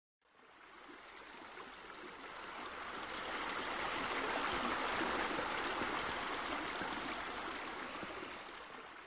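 Steady rush of falling, splashing water from a pool's water-wall feature. It swells gradually to its loudest around the middle and fades away near the end.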